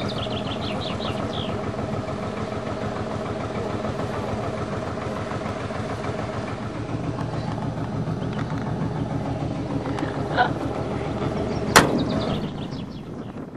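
An engine idling steadily with an even, rapid beat. High chirps come in the first second or so and again near the end, and a single sharp knock, the loudest moment, comes a couple of seconds before the end.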